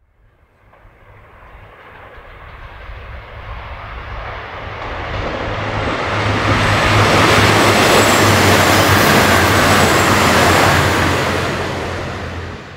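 A train coming through the station, growing steadily louder over about seven seconds with a steady low hum and a faint high whine, running loud for several seconds, then starting to fade before the sound cuts off abruptly.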